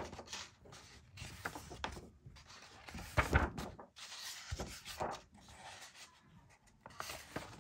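Paper pages of a colouring book being turned and hands brushing over them: a few irregular papery rustles and rubs, the loudest about three seconds in.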